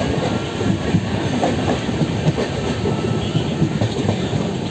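Passenger train coach running along the track: a steady rumble of wheels on rail, with frequent irregular clacks from the wheels passing over the track.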